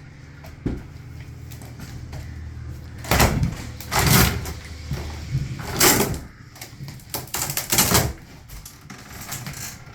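Knocks, scrapes and clatter of wooden fittings being pulled out during interior demolition, in a handful of loud bursts, under a low hum that stops about halfway through.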